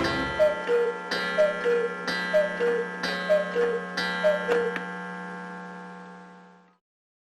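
Black Forest cuckoo clock calling the hour: five two-note falling cuckoo calls about a second apart, each paired with a strike on the clock's gong. The gong's ringing tone fades away about two seconds after the last call.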